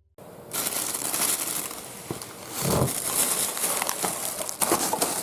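Close rustling and crinkling with scattered clicks, swelling louder briefly about halfway through.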